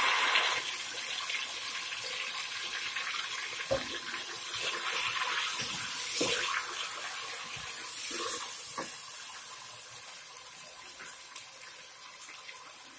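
Tomato, ginger, garlic and green chili paste sizzling in hot oil with browned onions in an aluminium pot, the sizzle fading steadily as the wet paste cooks down. A few knocks of a wooden spoon stirring against the pot.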